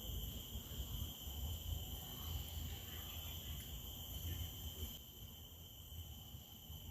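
Steady chorus of insects in tropical park vegetation, a constant high-pitched drone made of several held tones, over a low uneven rumble that eases about five seconds in.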